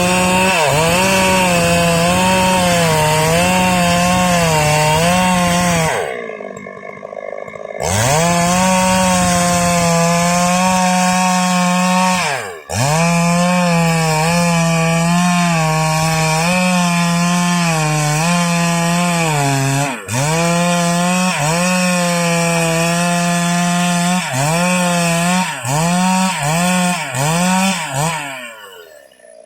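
Stihl MS 382 two-stroke chainsaw at full throttle ripping a salam log lengthwise, its engine pitch repeatedly sagging and recovering as the chain bites into the wood. It drops back to idle for about two seconds, gives several quick throttle blips near the end, then dies away.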